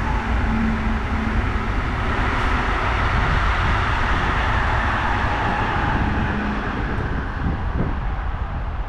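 Wind buffeting the microphone outdoors: a steady, gusty rumble with a hiss over it.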